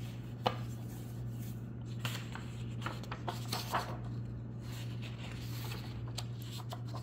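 Pages of a hardcover picture book being turned and handled: short bursts of paper rustling and flapping several times, over a steady low hum.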